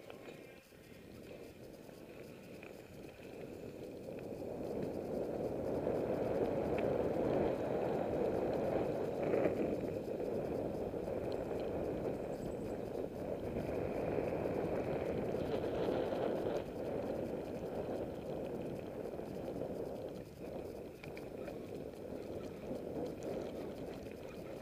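Mountain bike rolling over a dirt road: a steady rumble and rattle of tyres and frame on the rough surface, growing louder over the first several seconds.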